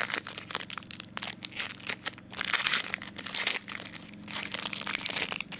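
Crinkling and crackling of a trading-card pack's foil wrapper being handled and opened, in many quick rustles that are busiest in the middle.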